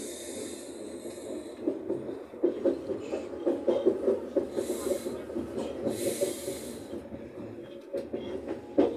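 Electric suburban train running along the track, heard from inside the carriage: a steady rumble of wheels on rail with uneven clatter, and a hiss that comes and goes.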